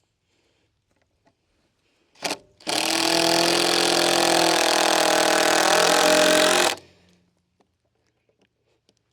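Power drill driving a screw into a wooden board: a short blip about two seconds in, then a steady motor whine for about four seconds that stops abruptly.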